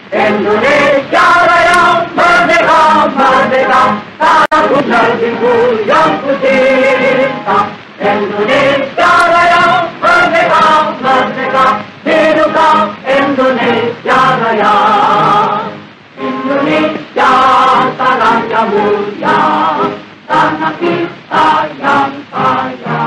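Choral singing as background music, a group of voices holding wavering sung notes phrase after phrase.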